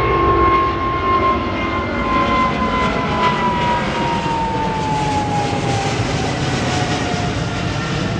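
Twin-engine jet airliner climbing out overhead just after takeoff: a steady jet engine roar with a whining tone that slowly falls in pitch as the aircraft passes and draws away.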